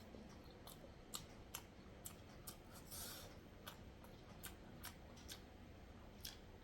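Mouth sounds of someone chewing boiled egg: faint, sharp, wet clicks and smacks about twice a second, with a softer squelch about three seconds in.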